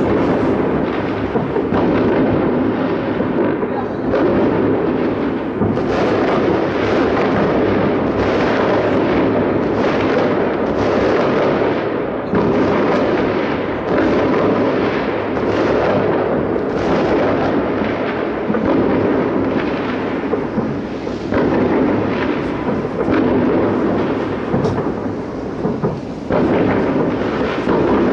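Distant fireworks salute shells fired from salute launcher vehicles, their many bursts overlapping into a continuous rolling rumble with only brief lulls.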